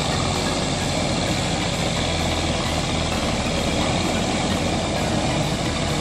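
Engine of a KC-3M crawler rotavator running steadily under load as it tills wet rice-paddy soil.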